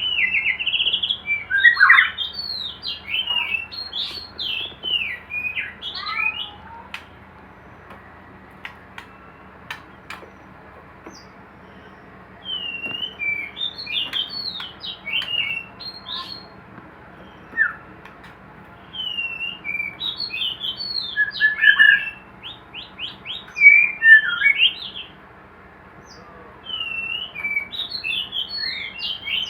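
White-rumped shama singing: bouts of quick, varied whistled phrases that sweep up and down, four bouts with short pauses between them.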